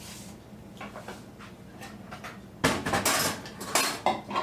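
Kitchen utensils and dishes clattering: a few light clinks, then a louder run of rattling, clanking impacts from about two and a half seconds in.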